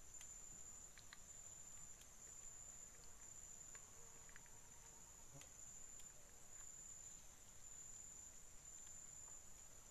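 Faint, steady high-pitched insect drone, with a few soft ticks here and there.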